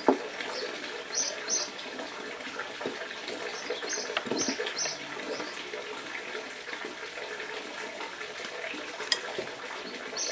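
A small bird chirping short high notes in twos and threes over a steady hiss, with a few light handling clicks and knocks.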